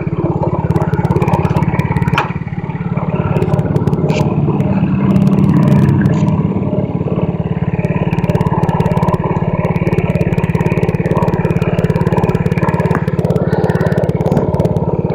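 Mini bike's Predator 212cc single-cylinder four-stroke engine running as it is ridden, swelling as it speeds up about four to six seconds in, then holding steady. Light rattling clicks come through over the engine.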